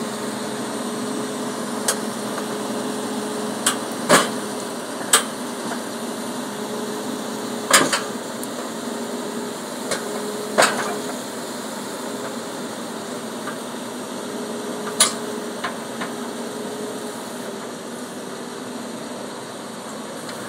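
New Holland crawler dozer's diesel engine running steadily as the machine crawls over a flatbed truck's steel ramps, with sharp metallic clanks every few seconds as the steel tracks and grousers strike the ramps and truck bed.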